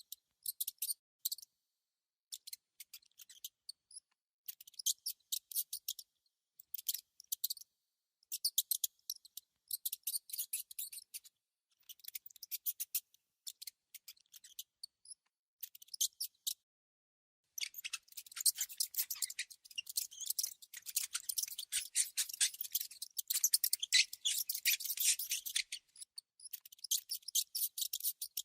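Mouse squeaking in short bursts of rapid, high-pitched chittering separated by silent gaps. In the second half comes a longer, denser run.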